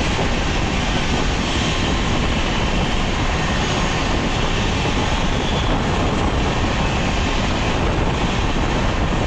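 Two express trains crossing at full speed, heard from the open door of one of them: a loud, steady rush of wind and wheel-on-rail noise as the oncoming train's coaches sweep past close by.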